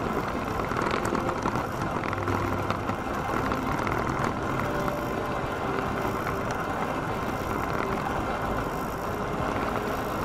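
Heartway Vita Monster S12X off-road mobility scooter driving steadily along a gravel road: continuous tyre noise on the gravel with scattered small clicks, and wind on the low-mounted camera's microphone.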